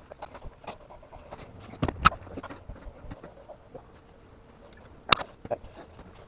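Hand work on a bicycle rear wheel: scattered light clicks and knocks of tools and parts, with two sharp knocks about two seconds in and another about five seconds in.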